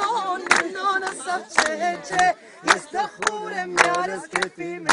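A group of people singing together over sharp percussive beats that come roughly every half second to a second.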